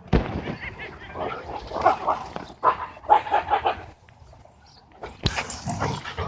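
Dogs vocalising in play, short high yips and whines in quick runs, with a brief lull about two-thirds of the way through.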